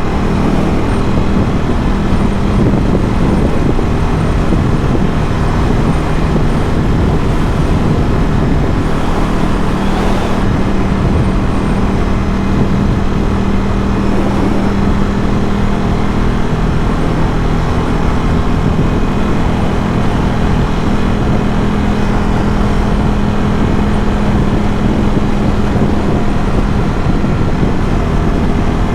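Ducati Scrambler 1100's air-cooled L-twin engine breathing through a Termignoni exhaust, running at a steady cruise with rushing noise underneath.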